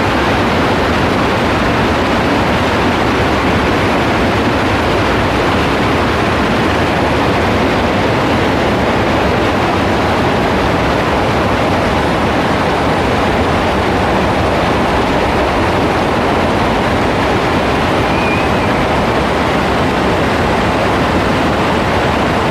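Heavy rain falling, a loud steady hiss that does not let up.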